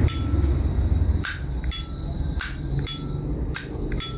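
Vintage Zippo lighter's lid flipped open and snapped shut again and again: about seven sharp metallic clicks, each with a brief ringing tone. It is the lighter's original, unrepaired lid sound, with the factory hinge and cam.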